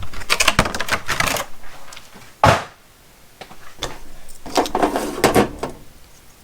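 Rapid clicks and clatter of hard plastic packaging and knife-kit parts being handled, in two busy spells, with one sharp knock about two and a half seconds in as something is set down.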